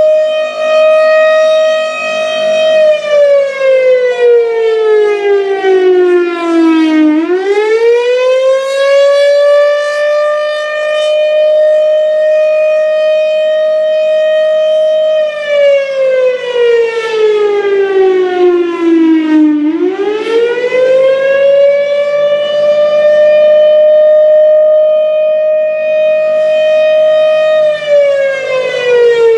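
1957 Federal Sign & Signal Thunderbolt 1000 tornado siren sounding the Attack signal: a loud, steady howl that slides down in pitch over about four seconds and then swings quickly back up. This happens twice, with several seconds of steady tone between the slides, and it starts sliding down again near the end. A low rumble runs underneath.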